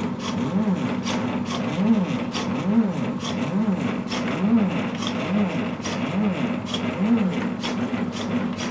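A large painting machine's drive motors at work. The motors whine up and then down in pitch with each move, a little more than once a second, among frequent sharp clicks from the mechanism.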